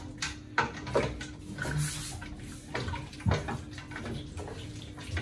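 Wooden spoon stirring meat, peanut butter and water in a stainless steel pot: liquid sloshing, with irregular knocks and scrapes of the spoon against the pot, over a faint steady hum.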